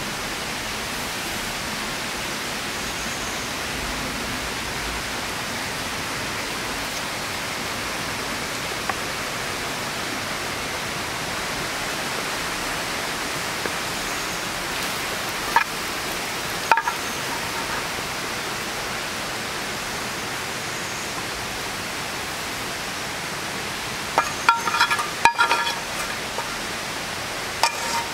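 Steady rush of flowing river water. A few sharp metal clinks come about halfway, then a quick cluster of clinks near the end, as a cleaver knocks and scrapes against a steel frying pan.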